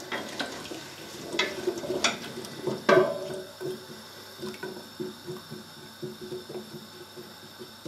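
Wooden spoon stirring diced potatoes in stock in a stainless steel stockpot: liquid sloshing, with several sharp knocks of the spoon against the pot in the first three seconds, then quieter stirring.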